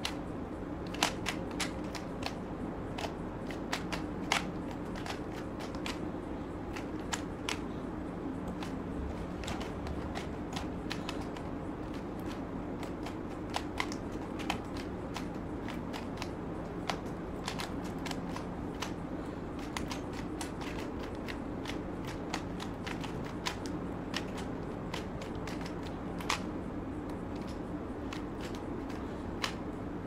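Plastic 3x3 Rubik's cube being turned quickly by hand: a fast, irregular run of clicks and clacks as the layers snap round, a few turns sharper than the rest.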